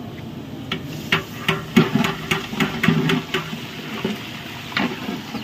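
Metal spoon knocking and scraping against a stainless-steel bowl, tapping ginger-garlic paste out into a cooking pot: a run of sharp knocks, about two to three a second.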